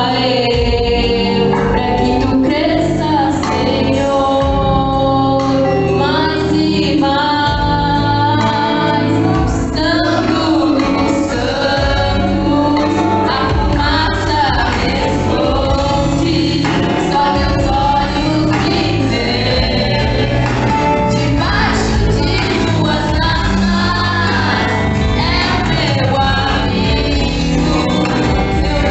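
Gospel hymn: voices singing together, choir-like, over an instrumental accompaniment.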